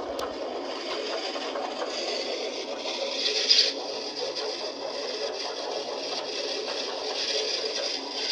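Steady scraping and rustling as a cardboard model engine is pushed and handled on the floor, with a brief louder scrape about three and a half seconds in.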